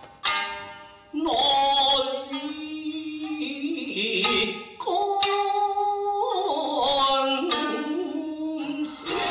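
Music: a plucked string instrument sounds a single note that rings and fades, then about a second in a voice begins singing long, wavering held notes, with a few sharp plucked accents underneath.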